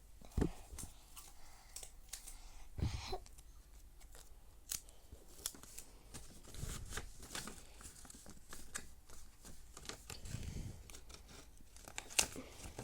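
Packing tape being pulled and snipped with scissors while a paper piece is handled: a scatter of sharp snips and rustles, with a soft thump about half a second in and another near three seconds.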